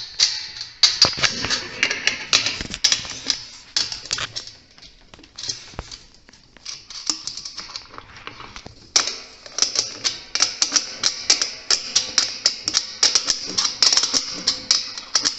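Rapid, irregular metallic clicking and clinking as a 10 mm wrench is fitted again and again onto flange nuts on an antenna's metal cross brackets and turned to tighten them. There is a quieter stretch in the middle.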